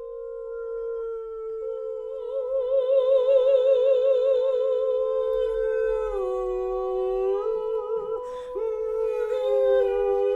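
Two voices holding long wordless notes a close interval apart, one with a wide vibrato, both sliding down in pitch about six seconds in and then back up. A brief noisy rush cuts across the notes about eight seconds in.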